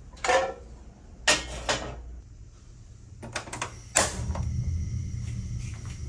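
Kitchen handling sounds: a nonstick frying pan lifted off its wall hook with a short metallic ring, a few sharp clicks and knocks, then a clatter as it is set on a gas stove's grate. After that the gas burner's flame burns with a steady low rumble.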